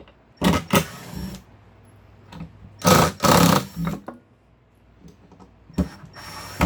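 Power drill/driver running in several short bursts, backing screws out of a wooden shipping crate.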